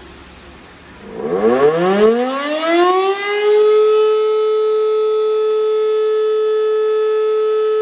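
Civil defence siren switched on for a siren test. About a second in it starts up, its pitch rising for about two and a half seconds, then it holds one steady, loud tone.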